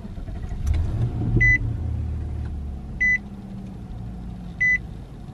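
Nissan Armada's V8 engine starting about a second in and settling into a steady idle, while a dashboard warning chime beeps four times, about every second and a half.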